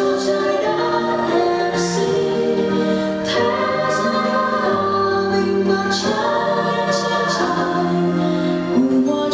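Music: a choir singing long held notes, the chord changing every second or two.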